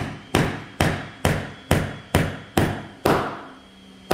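Small 8-ounce claw hammer striking a nail into a wooden board: a steady run of about eight sharp blows, roughly two a second, then a short pause and one last blow near the end, driving the nail until its head sits flush.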